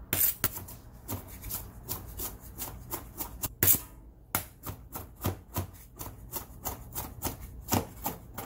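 Kitchen knife chopping scallion whites on a stainless steel cutting board: quick, even blade strikes against the metal, about three to four a second, with a short pause a little before the middle.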